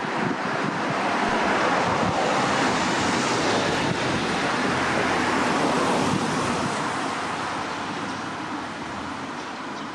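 A road vehicle passing, its tyre and engine noise swelling for a few seconds and then fading away, with wind on the microphone.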